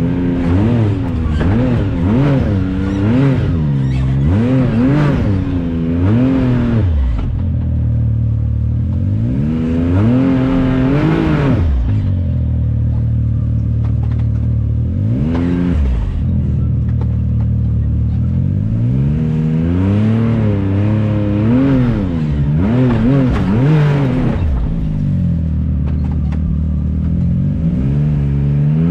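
Can-Am Maverick X3's turbocharged three-cylinder engine revving up and down again and again as it is driven, with steadier running for several seconds in the middle and again near the end.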